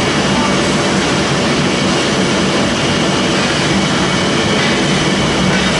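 Wood pellet production line machinery running: a steady, even mechanical noise with a low hum that does not change.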